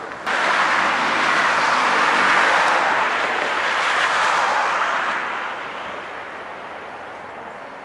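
Road traffic: cars passing close by, a steady rush of tyre and engine noise that starts abruptly, holds for about five seconds, then fades away.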